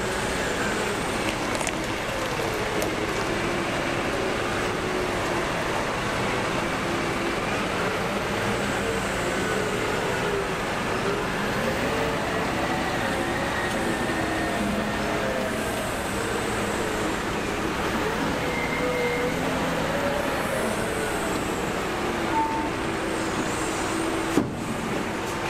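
Diesel engine of a Cat wheel loader running as it drives and manoeuvres, its pitch rising and falling with engine speed, over a steady machine rumble. A single sharp knock comes near the end.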